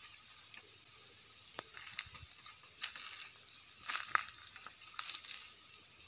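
Dry grass and twigs crackling and crunching as someone moves through them, with irregular snaps that come more often in the second half.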